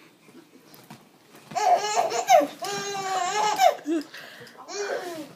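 Baby laughing in a run of high-pitched bursts starting about a second and a half in, with one more short laugh near the end.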